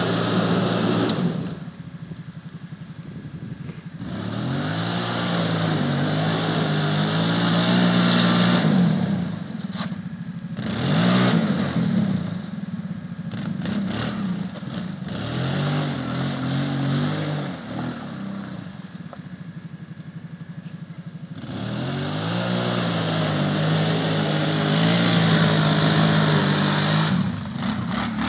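Kawasaki Brute Force 750 ATV's V-twin engine revving up and falling back again and again as its tyres spin through deep mud. Loud stretches of spraying mud and water come with the harder throttle bursts, between quieter spells of lower revs.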